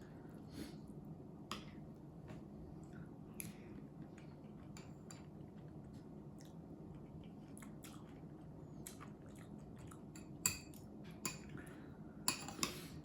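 Close-up eating sounds: quiet chewing and scattered light clicks of tableware, with a sharper clink about ten seconds in and a short cluster of clatter near the end, over a faint steady low hum.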